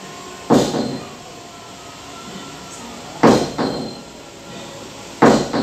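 Three loud, sharp knocks at uneven intervals, each dying away quickly, over a steady low background.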